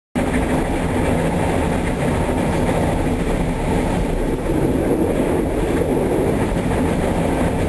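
Steady running rumble of a moving passenger train, heard from inside the carriage.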